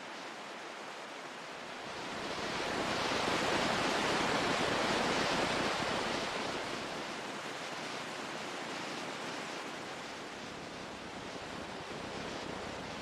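Ocean surf: a wave washes in, swelling about two seconds in and slowly dying away.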